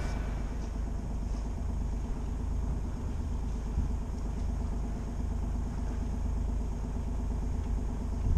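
Sailing yacht's engine running at idle: a steady low rumble.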